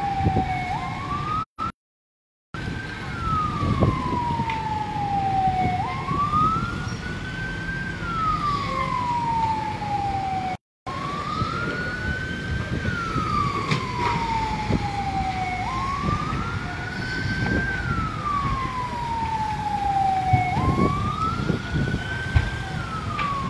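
Fire engine siren wailing, its pitch sliding slowly down, then snapping back up, in a cycle of about five seconds, over a low rumbling background. The sound cuts out briefly twice.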